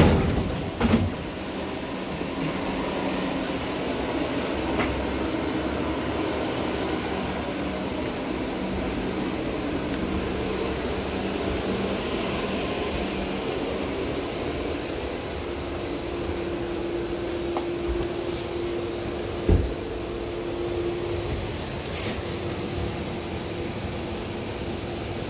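Cabin noise of an LVS-97K tram under way: a steady hum of the running gear and wheels on the rails. A steady whine comes in for a few seconds past the middle, and there is one sharp knock about 19 seconds in.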